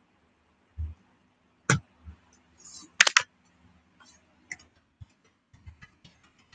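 Irregular light clicks and taps from hands handling or tapping something close to the microphone, with a few dull thumps. The loudest is a quick double click about three seconds in.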